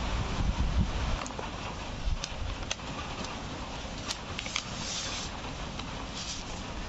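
Kraft paper mailer envelope and a cardboard sheet rustling as the cardboard is handled and slid into the envelope, with a few light clicks and a short burst of rustling about four and a half seconds in, over a steady low rumble.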